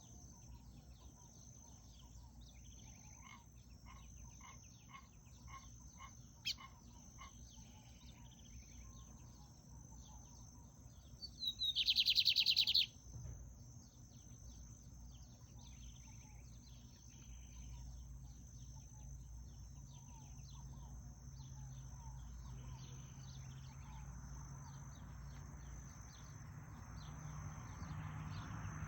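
A seedeater songbird singing. A run of evenly spaced notes comes at about two a second, then a loud, rapid trill about twelve seconds in. Faint high chirps and a steady high tone run underneath.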